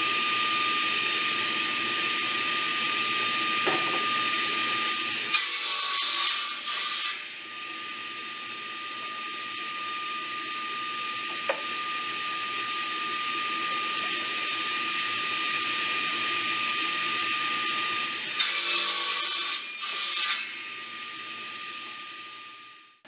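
Table saw running with a steady high whine, its blade cutting twice through mahogany board pushed on a crosscut sled. Each cut is a louder rasp of about two seconds, the first about five seconds in and the second about eighteen seconds in.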